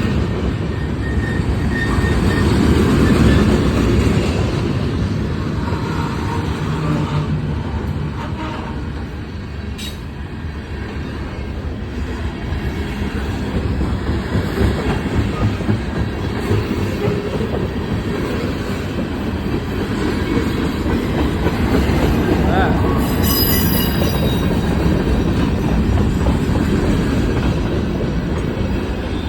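Train cars rolling past at close range, a steady loud rumble of wheels on rail. There is a brief high wheel squeal about 23 seconds in.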